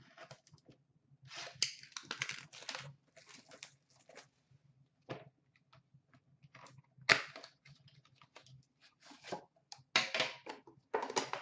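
A sealed Upper Deck Premier hockey card box being opened by hand: packaging crinkling and tearing, cardboard scraping, and knocks as the metal tin inside is handled and lifted out. The sharpest click comes about seven seconds in, with a busier cluster of rustles and knocks near the end.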